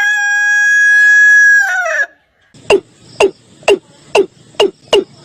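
A rooster's crow, the long held note ending in a falling tail about two seconds in. After a short gap comes a different bird call: a regular series of sharp, downward-sweeping notes, about two a second.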